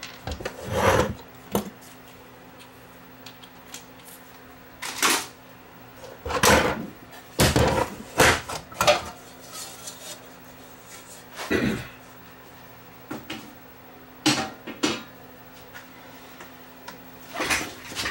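Sheet-metal cover and chassis of a rack-mount audio interface being handled and lifted apart: a series of separate metallic clatters, knocks and scrapes, several seconds apart.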